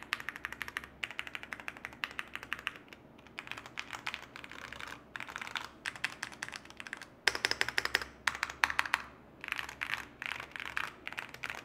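Typing on a mechanical keyboard: runs of quick keystrokes broken by short pauses, with the loudest flurry a little past the middle.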